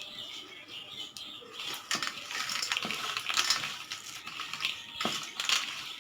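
Raw peanuts being mixed by hand into a thick gram-flour spice paste in a bowl: an irregular gritty rustle with scattered clicks of nuts knocking against each other and the bowl.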